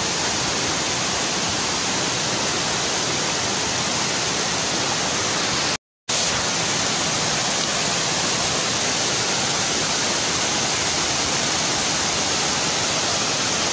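Waterfall pouring over boulders into a rocky pool: a steady, unbroken rush of water. A split-second dropout to silence about six seconds in.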